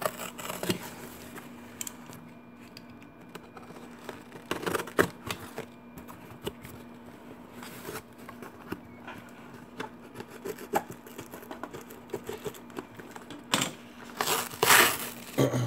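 Cardboard shipping box being opened by hand: packing tape and cardboard scraping, rubbing and tearing in irregular bursts, loudest near the end.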